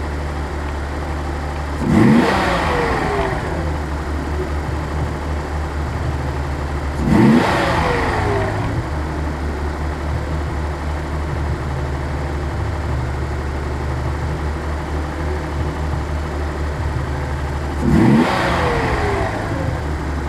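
1983 Datsun 280ZX Turbo's turbocharged 2.8-litre inline-six idling, blipped three times: the revs rise sharply and fall back about 2, 7 and 18 seconds in. The engine suffers a bad cold idle, which the owner suspects is a fuel injector, fuel pump or fuel pump damper problem.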